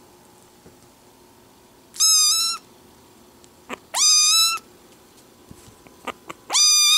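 Small black kitten meowing loudly three times, about two seconds apart; each meow is short and high, rising quickly and then held level.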